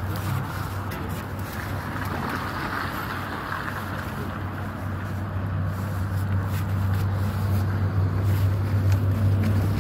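A steady low engine hum, as of a motor vehicle idling, getting louder over the last few seconds.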